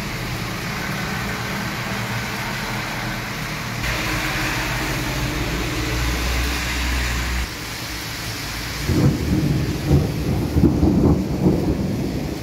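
Steady rain falling on a street with traffic passing. About nine seconds in, rolling thunder starts rumbling and becomes the loudest sound.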